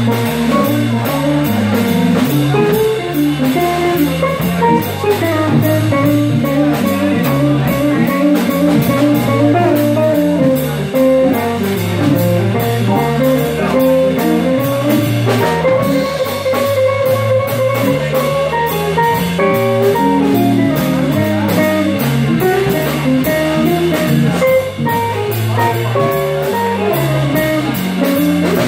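Live jazz combo playing a blues: an electric guitar soloing, backed by a Hammond organ and a drum kit.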